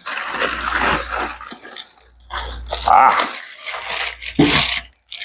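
Handling noise from unpacking welder accessories: irregular rustling of packaging with small items clinking and rattling, in several separate bursts.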